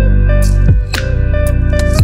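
Background instrumental music: plucked, guitar-like notes with sharp attacks over a steady low bass.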